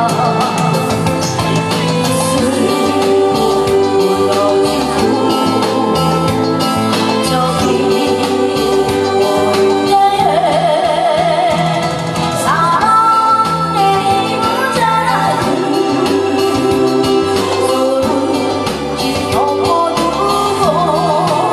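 A woman singing through a microphone and PA over an amplified accompaniment with a steady beat. Her long notes waver with vibrato, with swooping glides in pitch about halfway through and again near the end.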